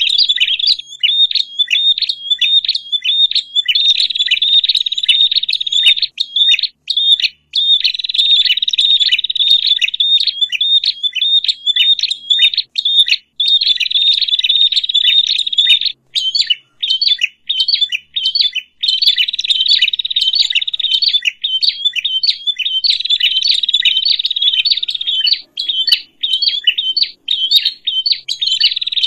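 Prenjak, small warbler-like songbirds, chattering noisily: a dense, agitated run of rapid, repeated high chirps with only brief pauses.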